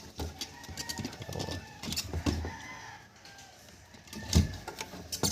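Chickens calling in the background, a drawn-out pitched call that bends up and down, over scattered clicks and knocks; the loudest knock comes about four seconds in.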